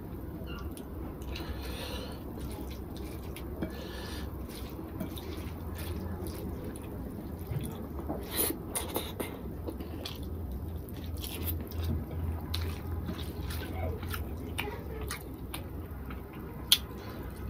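A person eating rice and fish curry by hand: wet chewing and mouth clicks, loudest about eight seconds in as a handful goes into the mouth, over a low steady hum.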